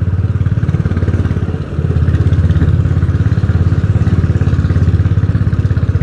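Royal Enfield Bullet 350's single-cylinder engine running loud under way, with a steady, even pulsing exhaust beat. It eases off briefly about one and a half seconds in, then pulls again.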